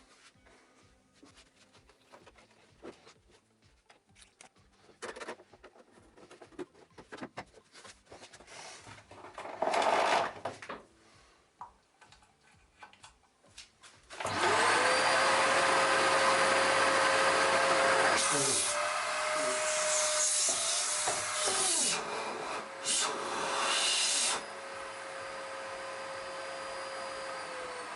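Clicks and knocks of plastic vacuum-cleaner parts being fitted together, then about halfway in the Samsung SC4034 vacuum cleaner switches on: its freshly replaced motor spins up to a steady whine with a rush of air, the sound shifting for several seconds as the suction is tried, then settling quieter and steady for the last few seconds.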